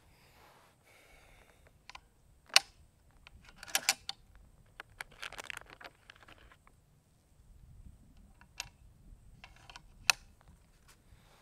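Reloading a big-bore PCP air rifle: a few sharp metallic clicks and rattles from its action, with a soft rustle of a plastic bag of slugs in between.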